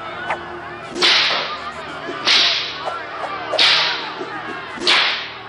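Four whip cracks, evenly spaced about a second and a half apart, each a sharp crack that trails off, played as sound effects in a stage performance's soundtrack.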